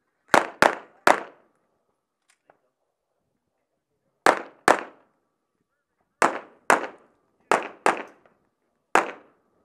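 Handgun fired ten times: three fast shots just after the start, then a pause of about three seconds, then two quick pairs, another pair and a single shot, each crack trailing off in a short echo.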